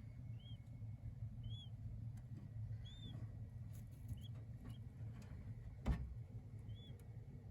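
King quail chicks peeping: about six short, high, arched peeps scattered through, each rising and falling quickly. A sharp click about six seconds in is the loudest sound, over a low steady hum.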